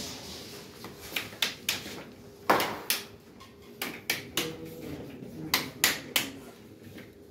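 A series of about a dozen irregular sharp clicks and knocks, the loudest about two and a half seconds in.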